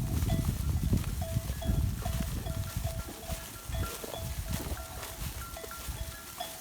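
A simple tune of short, evenly spaced notes, about two or three a second, over a low, uneven rumbling noise that is louder in the first half.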